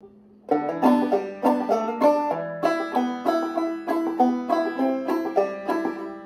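Five-string banjo played clawhammer style, starting about half a second in and going on in an even, repeating bum-ditty rhythm of single plucked notes and brushed strums.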